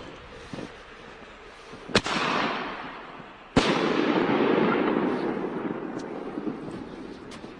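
Aerial firework shells from a consumer mortar bursting: two sharp bangs about a second and a half apart, each followed by crackling that fades away over a couple of seconds.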